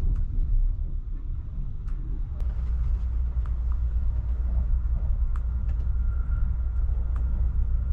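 Cabin running noise of the Kintetsu Hinotori electric express train under way: a steady low rumble, with a few faint clicks.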